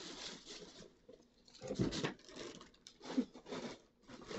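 Thin plastic shopping bag rustling and crinkling as it is handled, in about three irregular bursts.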